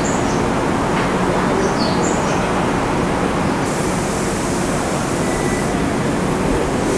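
Tobu Railway stainless-steel commuter train starting to pull out of a station, with a steady running noise from its motors and wheels. A hiss sets in about halfway through and stops about two seconds later.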